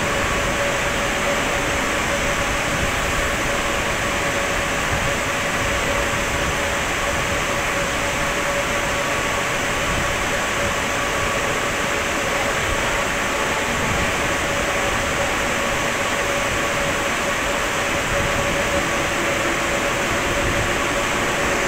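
Background noise of an underground metro station: an even, steady rumble with a faint steady hum.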